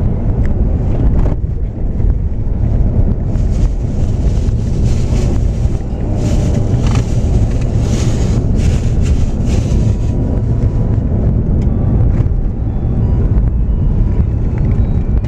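Road noise of a car driving, heard inside the cabin: a steady low rumble of engine and tyres, with a brighter hiss added for several seconds in the middle.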